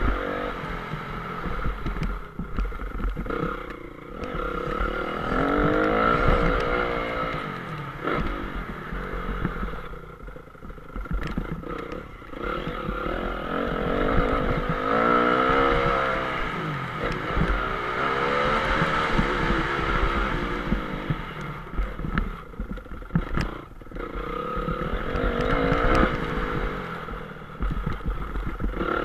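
Honda CRF 250 motocross bike's four-stroke single-cylinder engine, heard onboard, revving up hard several times, about 5, 14, 18 and 25 seconds in, and dropping back when the throttle is shut between them. Scattered knocks and rattles from the bike run underneath.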